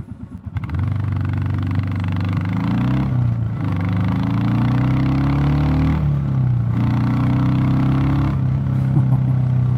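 Royal Enfield Classic 350 Reborn's single-cylinder engine, fitted with a DNA performance air filter, pulling away from idle and accelerating through the gears. The engine note rises and dips at two gear changes, about three and six seconds in, then holds steady. The rider finds the tone bassier with the new filter.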